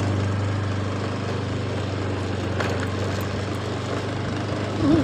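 Vehicle engine running at a steady, unchanging pitch, with a constant hum and road noise underneath.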